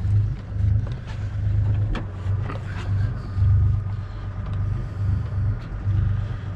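Boat engine running, a low rumble that swells and fades unevenly.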